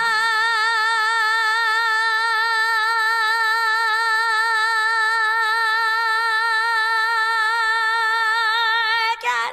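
A woman's singing voice holding one long high note with a steady vibrato, unaccompanied, for about nine seconds before breaking off near the end: the long-held note of a musical duet's note-holding contest.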